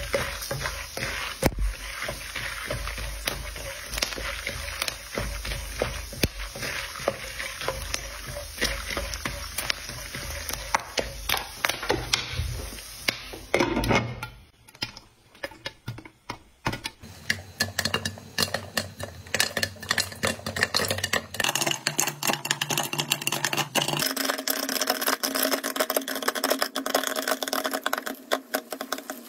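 Popcorn kernels sizzling in hot oil and butter in a non-stick pan while stirred with a wooden spatula. From about halfway, kernels start popping, rapid sharp cracks that get denser toward the end under a glass lid.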